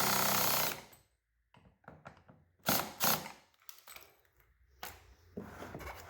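Cordless drill with a T30 bit running, driving a bolt in at a low clutch setting, stopping about a second in. A few short clicks and knocks follow.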